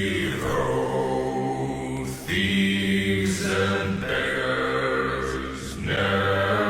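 Background music: low, droning, choir-like chanting in long held phrases that restart about every three seconds.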